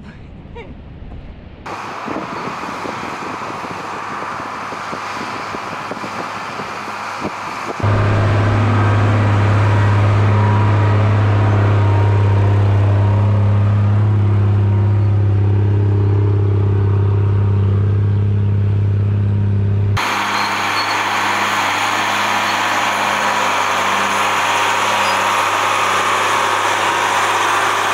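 Mercedes-Benz Unimog U1700L's six-cylinder turbo-diesel engine pulling steadily under load up a steep sandy climb. It is heard from several spots, changing abruptly a few times, and loudest as a deep steady drone heard close up through the middle.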